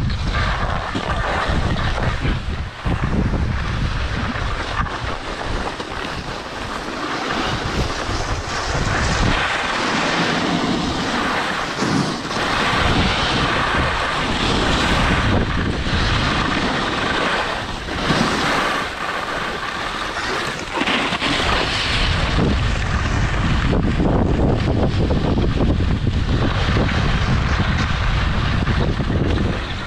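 Wind buffeting a moving action camera's microphone during a downhill ski run, with the steady hiss and scrape of skis on hard-packed snow. The low wind rumble drops away through the middle and comes back strongly about two-thirds of the way through.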